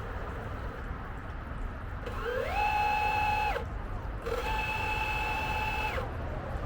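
Small electric motor on an RC boat whining twice, each time winding up to a steady high pitch, holding for about a second and a half, then stopping.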